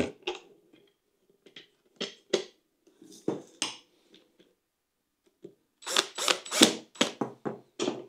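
Handling noise: a scatter of sharp clicks and knocks as a plastic light fixture and a cordless drill are picked up and set down on a tabletop, with a quick run of louder knocks about six to eight seconds in.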